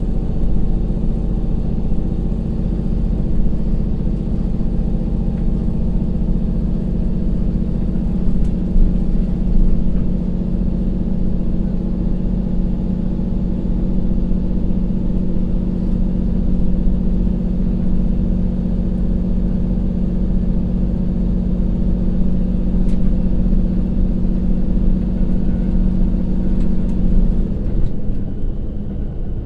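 KiHa 182-508's DML30HSJ direct-injection 12-cylinder diesel engine (550 PS) running at full power in torque-converter drive as the railcar accelerates. It is heard as a steady, loud drone inside the passenger cabin. Near the end the engine note drops and changes as the transmission shifts from converter drive to direct drive at about 70 km/h.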